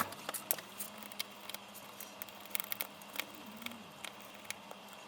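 Light, irregular clicks and taps of a small screwdriver and tiny screws as the screws holding a smartphone's loudspeaker module are taken out, over a faint steady background hum.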